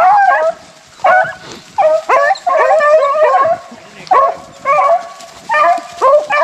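A pack of rabbit hounds baying on a swamp rabbit's trail: a quick run of short, overlapping bawls from several dogs, each call rising sharply and then holding.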